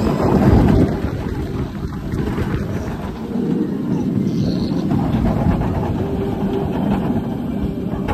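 Suspended roller coaster train running along its steel track: a steady low rumble of the wheels, mixed with air rushing over the phone's microphone. It is loudest just under a second in.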